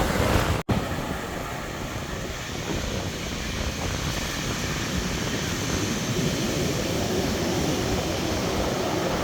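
Heavy surf pounding a beach, a steady even rush of noise, mixed with wind on the microphone at the start. The sound drops out for an instant just over half a second in, at a cut between shots.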